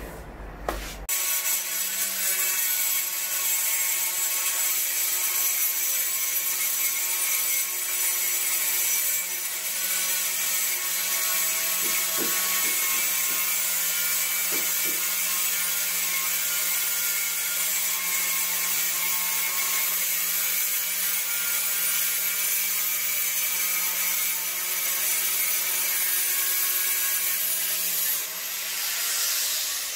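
Angle grinder with a diamond blade, running in a 45-degree chamfering guide and grinding a bevel along a tile's edge. It is a steady grinding whine that starts about a second in and eases off near the end.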